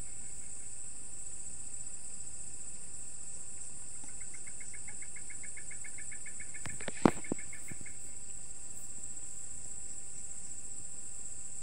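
Steady, high-pitched night chorus of crickets, with a faster pulsed chirping joining from about four to eight seconds in. A single sharp knock sounds about seven seconds in.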